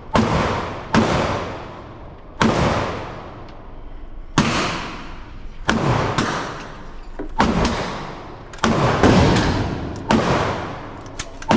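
Gunshots at an indoor shooting range: about a dozen shots, unevenly spaced roughly a second apart, each echoing off the range walls and fading out.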